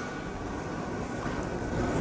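Steady low rumble of running machinery with a faint, steady high whine through it.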